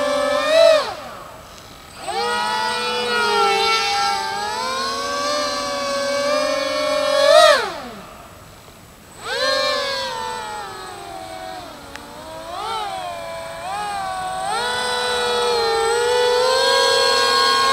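The three electric motors and propellers of an RC Su-30 foam model jet give a siren-like wail that rises and falls with the throttle. Twice the pitch swoops sharply up and then drops away as the throttle is cut, about a second in and again about seven and a half seconds in. Each time it then climbs back to a steady high howl, rising toward the end.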